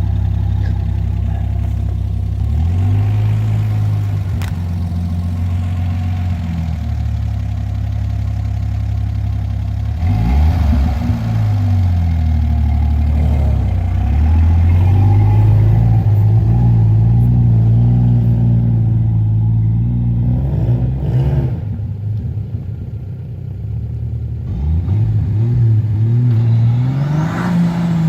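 Turbocharged Nissan TB42 4.2-litre straight-six petrol engine running loud under load, its revs rising and falling several times, with a dip near the middle and a climb again near the end.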